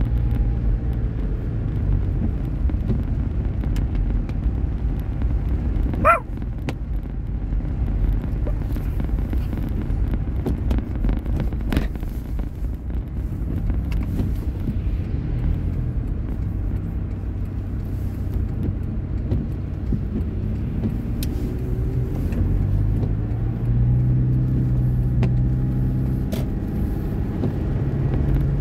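Car cabin noise while driving on a wet road: a steady low rumble of engine and tyres, with the engine's hum shifting in pitch. A brief sharp sound comes about six seconds in.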